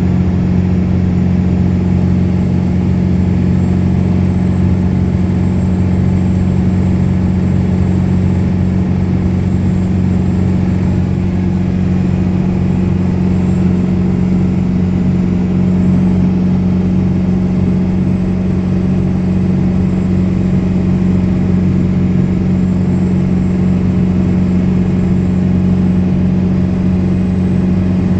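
1995 Ford 7.3 Powerstroke turbo-diesel V8 pulling hard under load while towing about 10,000 lb up a long grade with overdrive locked out, heard from inside the cab. It makes a constant deep drone at one steady pitch, through a 3.5-inch downpipe with no muffler or cat.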